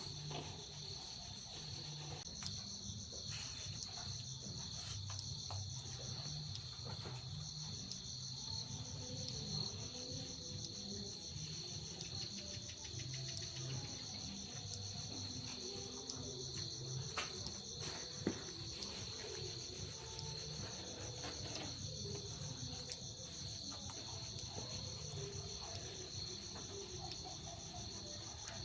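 A steady chorus of insects trilling continuously in several high pitched bands, with scattered faint knocks and one sharp click about 18 seconds in.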